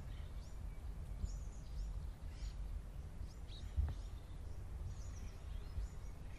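Small birds chirping in the background, short high chirps several times a second, over a steady low rumble of background noise. A single click about four seconds in.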